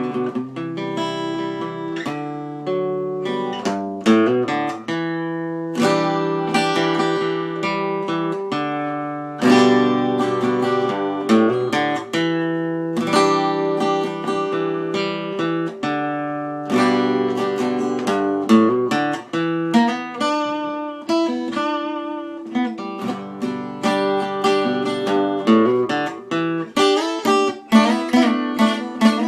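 Solo acoustic guitar playing, with plucked notes and chords ringing on.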